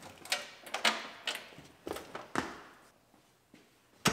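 Metal seat hardware and fittings clattering as they are handled and pulled out of a stripped truck cab: about five sharp clunks and rattles roughly half a second apart, then a pause and one louder knock near the end.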